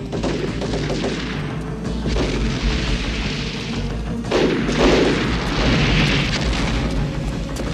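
Film sound effects of several explosions in a row, the loudest about four and a half seconds in, over the music score.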